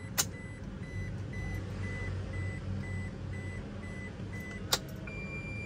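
Toyota Fortuner dashboard warning chime beeping with the ignition switched on: short high beeps about two a second, then one longer beep about five seconds in. A sharp click comes just after the start and another shortly before the long beep, over a steady low hum.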